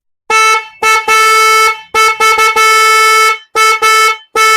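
ATIF electric wind-tone horn sounding at one steady pitch in a string of about six loud blasts, mostly short, with one held for over a second in the middle.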